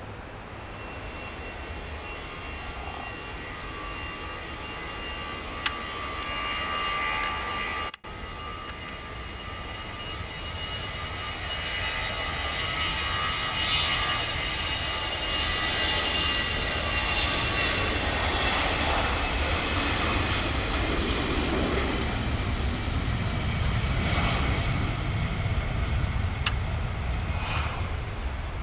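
Airbus A320's twin turbofan engines at takeoff thrust: a whine of high tones over a rumble, with a brief break about a third of the way in. It grows louder from about twelve seconds in and stays loud, the tones slowly falling in pitch as the jet goes past.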